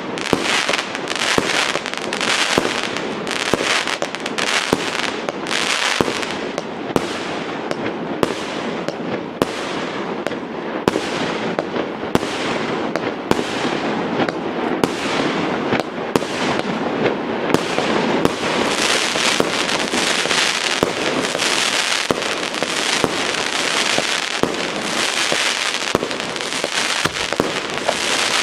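Aerial fireworks shells bursting at close range in quick succession, sharp bangs about every half second to second over a continuous crackle that grows denser in the second half.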